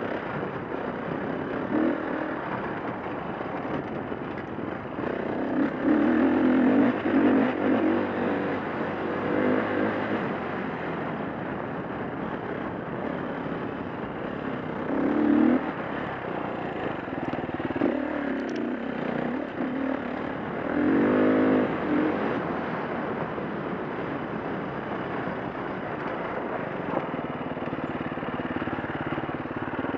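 2011 KTM 350 dirt bike's single-cylinder four-stroke engine running hard on a trail, over a steady rush of noise. The revs rise and fall through several louder bursts of throttle, the strongest about six seconds in and again around twenty-one seconds.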